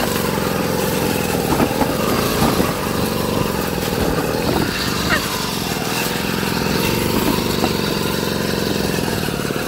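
Engine of an off-road side-by-side running steadily as it drives over rough ground, its pitch rising and falling slightly as the throttle changes.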